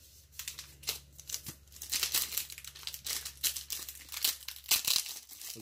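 Foil wrapper of a football trading card pack crinkling in the hands as it is worked and torn open, a dense run of irregular crackles.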